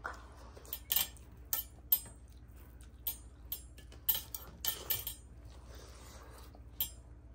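Scattered sharp clinks and taps of hands on metal thali plates while eating rice by hand, about a dozen in all.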